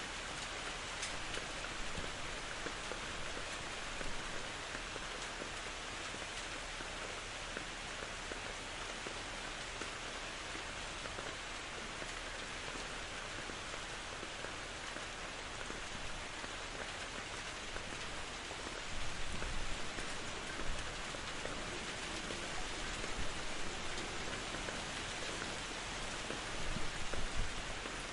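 Steady rain falling, with scattered drop taps and a few brief louder swells in the last third.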